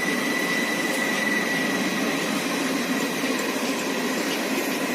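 Passing train making a steady rolling, running noise at an even level, with a thin high whine that fades out over the first couple of seconds.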